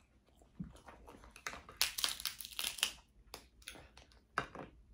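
Snow crab shells cracking and crunching as they are broken apart: a run of irregular crackles, densest about two seconds in, with a few more near the end.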